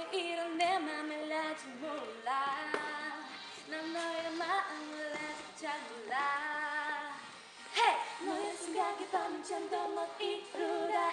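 Two women singing a K-pop song together, the melody bending and gliding in pitch, with a brief louder, sharper accent about two-thirds of the way through.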